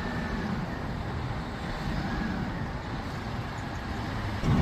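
Mobile crane's diesel engine running steadily, a low rumble that gets louder near the end.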